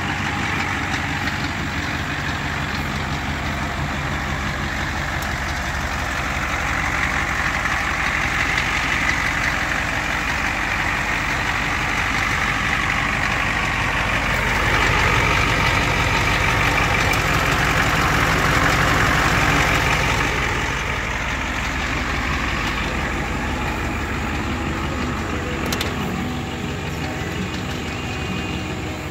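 Ford 7.3-litre turbo diesel V8 idling steadily, louder for several seconds around the middle.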